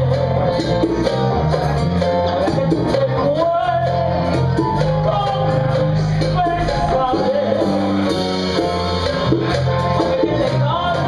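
Live band: a woman singing into a microphone over a steady electric bass line and the rest of the band.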